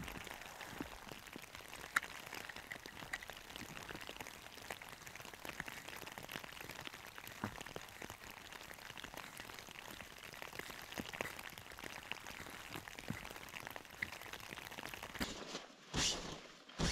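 Folding snow shovel digging into and scraping snow beside a tent: faint crunching with many small scattered clicks, and a couple of louder scrapes near the end.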